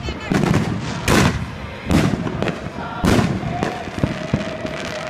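Aerial firework shells bursting in quick succession in a finale: four heavy booms in the first three seconds, each with a rumbling tail, then a string of sharper, quicker cracks near the end.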